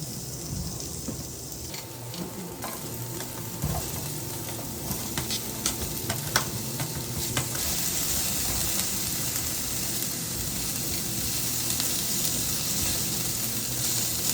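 Food frying in a pan: a steady sizzle with scattered clicks and taps of a utensil in the first half. The sizzle grows louder from about halfway through.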